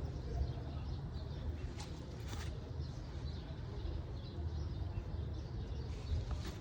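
Faint bird chirps over a steady low rumble, with a couple of brief rustles about two seconds in.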